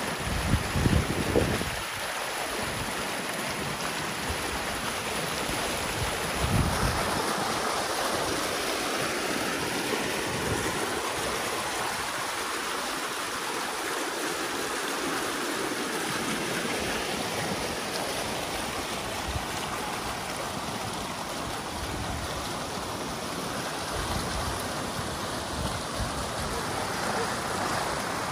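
Pond water rushing steadily down a narrow dug drainage ditch, the even rush of fast-flowing water. A few low rumbles of wind on the microphone come about a second in and again around six seconds.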